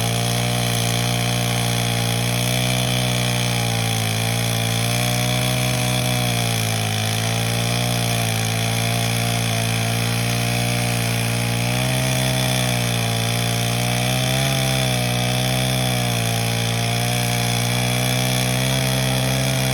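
Chainsaw engine running at a steady speed, its pitch wavering slightly.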